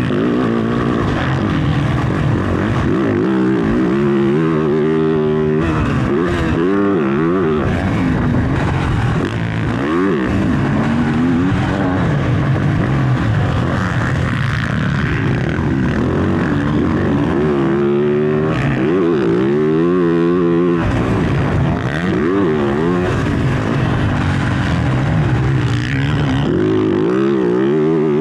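Motocross dirt bike engine revving hard while being ridden, its pitch climbing and dropping back over and over as the throttle is opened and chopped.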